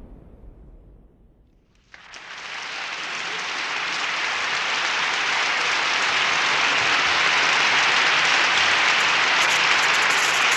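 The rumble of an explosion fades away. About two seconds in, applause starts suddenly and builds to a steady level.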